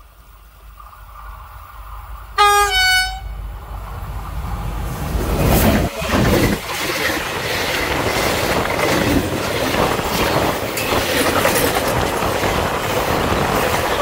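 Two-note horn of a Captrain class 335 (Vossloh Euro 4000) diesel locomotive sounding briefly about two seconds in, a low note then a higher one, a driver's greeting. The locomotive then passes close by, and loaded timber wagons roll past with a steady clickety-clack of wheels on the rails.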